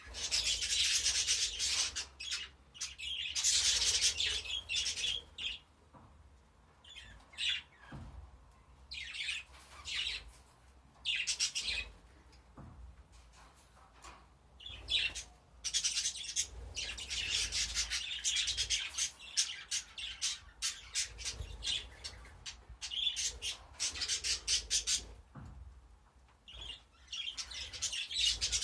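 Budgerigars chattering and squawking, in bursts of a few seconds with short lulls between.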